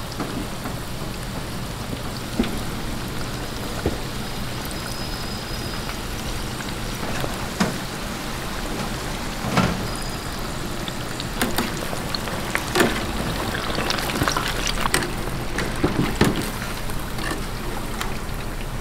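Battered fritters deep-frying in a stainless steel fryer, the oil sizzling steadily. Metal tongs click and scrape against the fryer basket now and then, more often in the second half.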